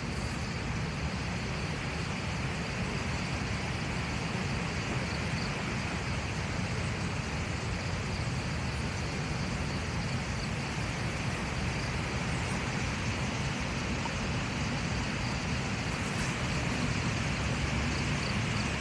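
Strong wind buffeting the microphone: a steady, unbroken rumble, heaviest in the low end.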